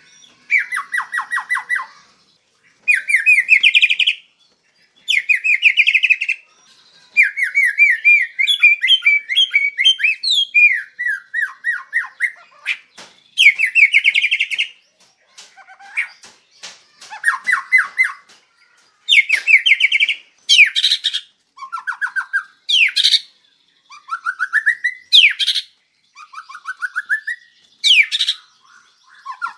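White-rumped shama singing: loud, varied phrases of rapid trills and fast repeated notes, each a second or two long with short pauses between, with sharp upswept notes in the later phrases.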